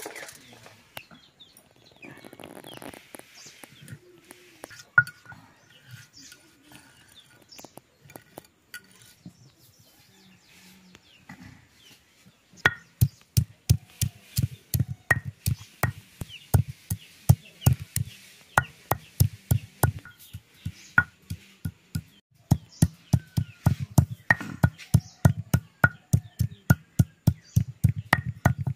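Stone pestle pounding spices on a stone grinding slab. After scattered light knocks and faint bird chirps, it settles about halfway through into a steady run of sharp stone-on-stone knocks, two to three a second.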